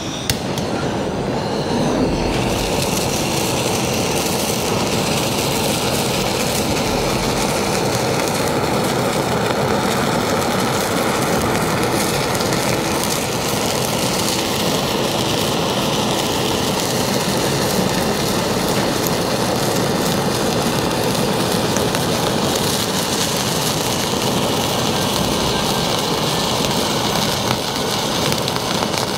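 Handheld gas kitchen torch burning with a loud, steady hiss as it flame-sears a slice of A5 wagyu; the flame lights just after the start.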